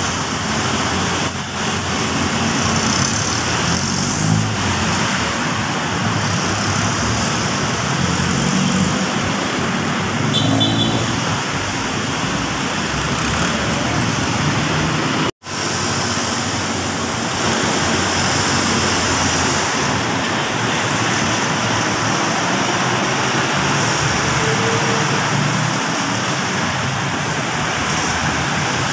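Steady road traffic from a busy city street: cars, vans and motorcycles passing, with a momentary break in the sound about halfway through.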